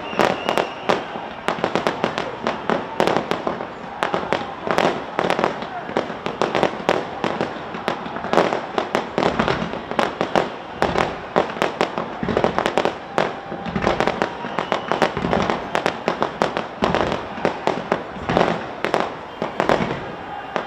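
Fireworks display fired from a tower: a dense, rapid run of sharp bangs and crackles, several a second, with a few deeper booms around the middle.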